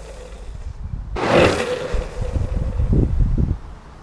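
New Premier urethane longboard wheels sliding across asphalt: one hissing slide with a steady squeal, about a second long, beginning about a second in. It is followed by the rough rumble of the wheels rolling, and wind on the microphone.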